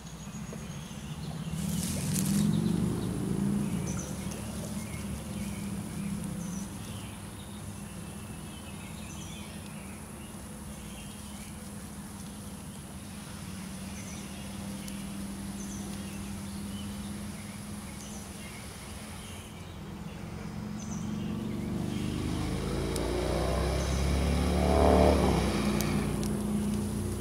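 A passing motor engine drones steadily, swelling about two seconds in and again toward the end, loudest shortly before the end. Faint bird chirps recur every couple of seconds.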